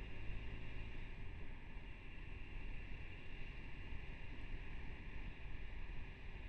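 Motorcycle riding at a steady speed, heard through a helmet-mounted camera's microphone: a constant rush of wind with engine and road rumble underneath.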